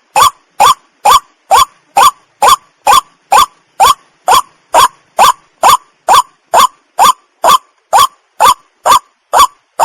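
White-breasted waterhen calling: short rising notes repeated evenly, about two a second, with brief gaps between.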